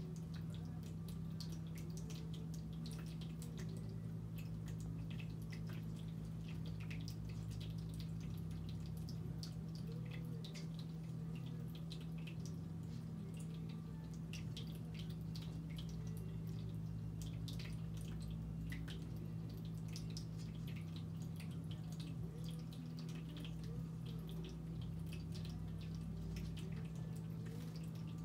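Two budgerigars in a wire cage making scattered faint clicks and ticks as they shift on their perches, over a steady low hum.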